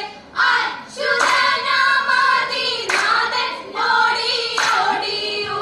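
Vanchippattu, the Kerala boat song, sung in unison by a group of female voices, with hand claps keeping the beat.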